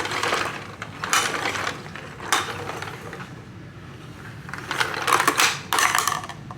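Hard plastic clattering and rattling from a toy bulldozer as a plastic ball drops and rolls through it. It comes in several short bursts: one at the start, two more in the first few seconds, and a longer run of rattling near the end.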